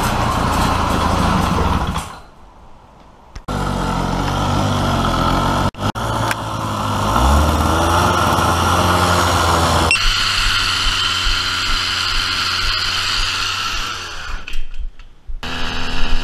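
Two-stroke motorized-bicycle kit engine running and revving in several short clips joined by abrupt cuts; about seven seconds in, its pitch climbs as it is revved up.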